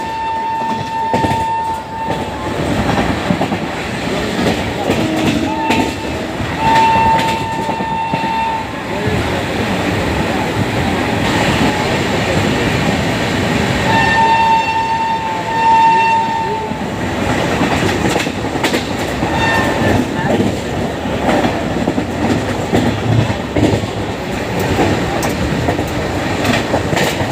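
Shrill horn of a WAP-7 electric locomotive sounding three times: a blast that is already on and stops about two seconds in, another about seven seconds in, and a longer one around fourteen seconds in. Under it runs the steady rumble and clatter of the train running, heard from on board.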